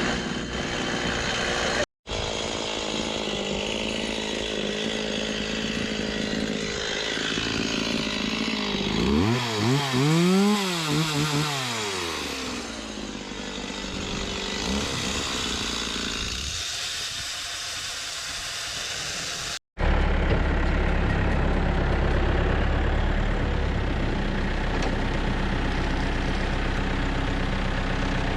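Wood-processing machinery running, broken into separate clips. An engine-driven saw or machine rises in pitch and falls back once about ten seconds in. After a cut near twenty seconds, a heavy engine runs steadily with a deep low rumble.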